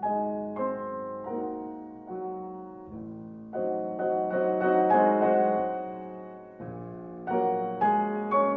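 Piano music: notes and chords struck one after another, each left to ring and fade.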